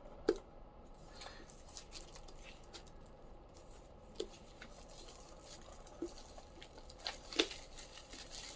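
Quiet rustling and tearing of packaging as a hardcover book is unwrapped by hand, with a few scattered sharp clicks and ticks.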